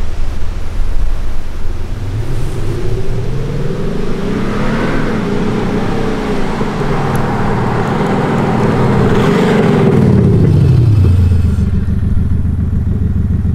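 Mercedes-Benz S400d's 3.0-litre inline-six diesel accelerating, its note made louder and more rumbling by a retrofitted active sound module working through an exhaust actuator. The engine note climbs about four seconds in, climbs again near nine seconds and falls away shortly after.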